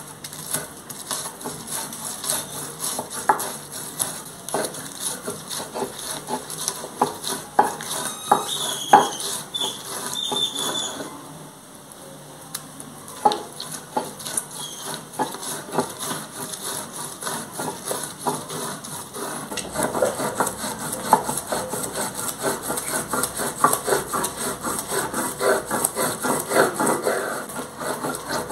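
Stone metate and stone hand roller grinding green chiles, onion, garlic and hierba santa: repeated scraping strokes of stone over stone, quicker and steadier over the last third.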